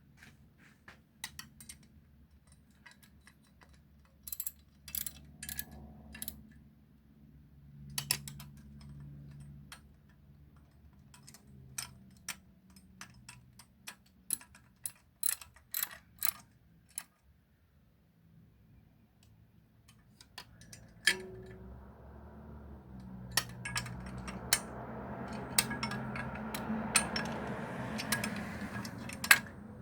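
Metal hand tools being handled: a socket and ratchet wrench clicking and clinking in scattered strokes. About two-thirds of the way in, a louder, steadier rattling noise begins with denser clicks over it.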